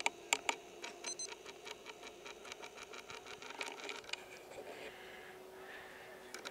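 Faint, rapid, even ticking of a camcorder's zoom motor as the lens zooms in, stopping about four seconds in, over a faint steady hum.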